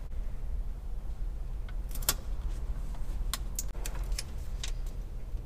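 A handful of sharp light clicks and taps, from about two seconds in, as a flush mount and a marker are handled against an aircraft instrument panel, over a steady low rumble.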